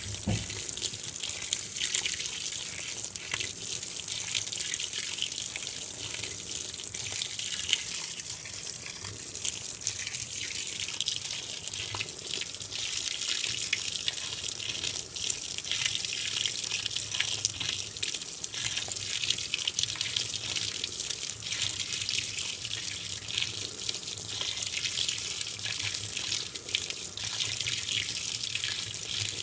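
A 2012 LG top-load washing machine filling its tub with water: a steady rush and splatter of water pouring in, with small splashes throughout.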